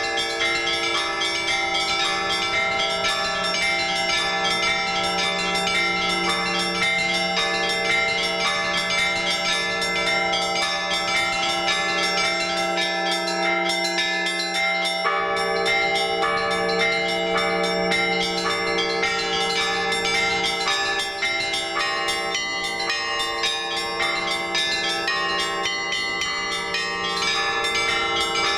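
Orthodox church bells rung together in a trezvon: small bells struck in quick, dense patterns over the lasting hum of the larger bells. The deepest bell's hum drops out briefly about halfway through, then returns.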